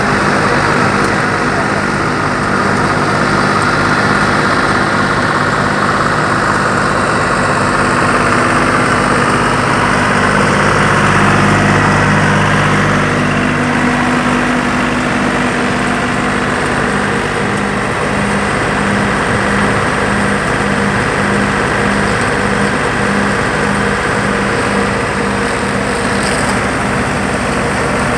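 Tractor-powered straw thresher and blower running steadily: the tractor's diesel engine drones under load as it turns the thresher through its belts and pulleys, with the blower fan hum mixed in.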